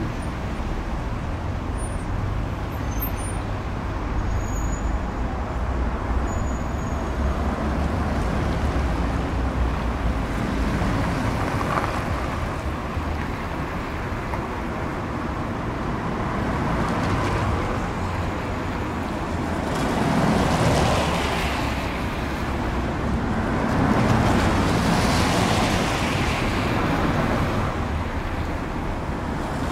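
Steady city street traffic heard from above, with a deep rumble throughout and two louder swells about twenty and twenty-five seconds in.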